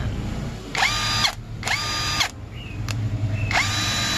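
Lvdian cordless impact wrench, running on a 988VF battery pack, triggered three times without load. Each short burst of motor whine rises in pitch as it spins up and drops as it coasts down; the third is the longest. The wrench is being test-run on a newly assembled battery pack.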